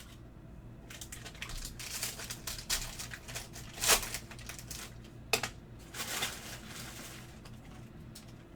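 Foil trading-card pack wrappers crinkling and tearing as packs are opened, with cards being handled. The rustling comes in irregular bursts, and sharp crackles stand out about four and five and a half seconds in.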